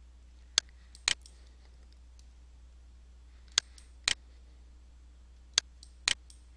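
Computer mouse button clicks: three pairs of sharp clicks, each pair about half a second apart, over a faint steady low hum.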